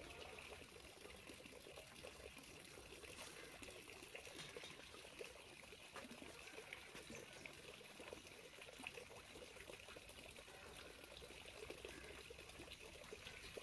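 Faint trickling water, close to silence.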